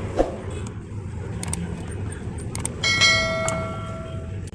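A few light clicks of metal tools and parts while an RO booster pump is taken apart, then about three seconds in a metal piece is struck and rings with a clear bell-like tone that fades over about a second and a half. A steady low rumble sits underneath.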